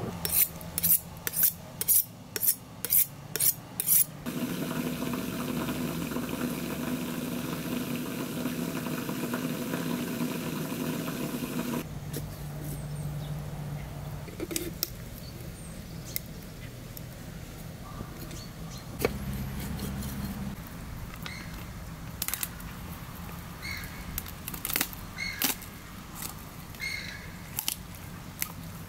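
Food-preparation sounds from kitchen utensils. About eight sharp knocks come in the first four seconds. A steady rushing noise follows for about eight seconds, then scattered light clinks and taps.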